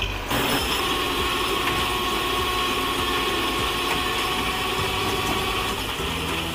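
Heavy wrecker tow truck's engine running steadily, with a thin steady whine that stops near the end.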